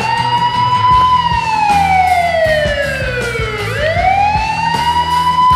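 Wailing siren, twice: each cycle rises smoothly, then slowly falls in pitch. A quieter background-music bed plays underneath.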